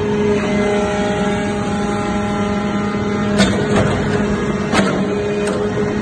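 Hydraulic metal-chip briquetting press running: a steady hydraulic hum with a held whine that stops with a sharp metallic clunk about three and a half seconds in, followed by a couple more knocks.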